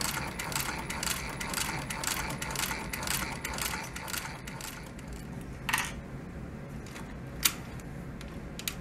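Singer 153W103 cylinder-arm walking-foot sewing machine stitching leather, chugging along at an even clatter of about five stitches a second, stopping about four and a half seconds in; then three separate sharp clicks.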